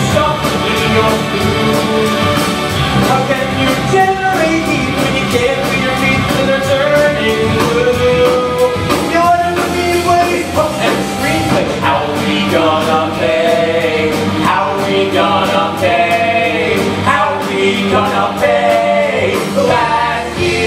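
Rock musical number: cast members singing with a rock band behind them.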